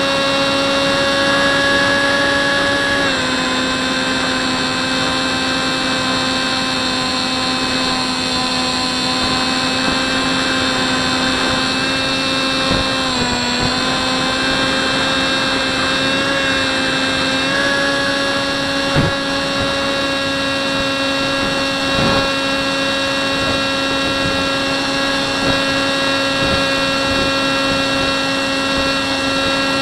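Electric motor and propeller of a Hubsan Spyhawk RC plane whining steadily in flight, heard from the camera mounted on the airframe. The pitch steps down slightly about three seconds in, dips briefly near the middle and climbs back a few seconds later as the throttle changes, with a short knock about two-thirds of the way through.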